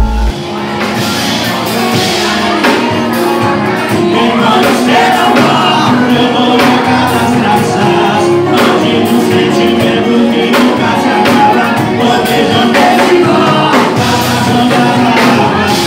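Music with a sung vocal and a steady beat.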